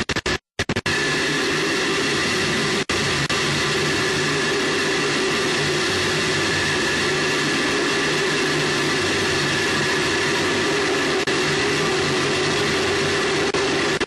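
Air rushing past a falling Space Shuttle solid rocket booster, picked up by the booster's onboard recorder: a loud, steady noise with a faint hum running through it. The sound cuts out completely for moments in the first second, and there is a single click about three seconds in.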